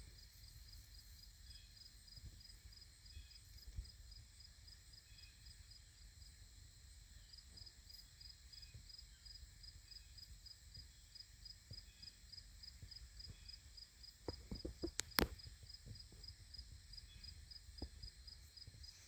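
Faint evening insect chorus: crickets chirping steadily about three times a second over a constant high trilling, with a few soft rustles and one sharp click about fifteen seconds in.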